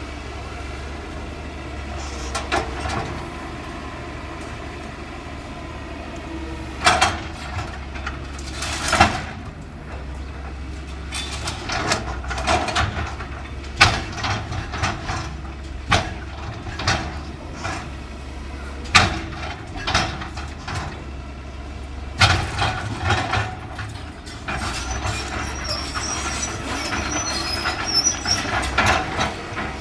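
Caterpillar 325L excavator's diesel engine running steadily under load, with sharp crashes and clanks every few seconds as building debris is broken and dropped during demolition.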